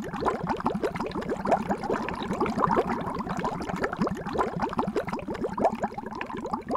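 Underwater bubbles sound effect: a steady stream of bubbling made of many short, quick rising blips, several a second.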